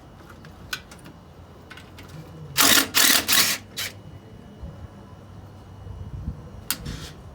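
Impact wrench hammering in three short bursts about two and a half seconds in, loosening an intake manifold bolt, with a shorter burst near the end and light clicks of tools between.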